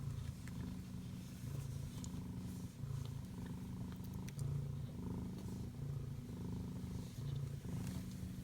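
A kitten purring, a steady low hum that swells and eases with each breath, about once a second.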